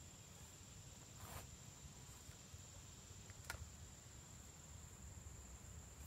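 Near silence: a faint steady high insect drone in the background, with a soft rustle about a second in and a light click a couple of seconds later as camp gear is handled.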